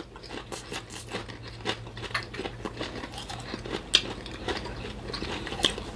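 People chewing strawberry-flavoured popcorn with closed mouths: a run of small crisp crunches and clicks over a faint steady low hum.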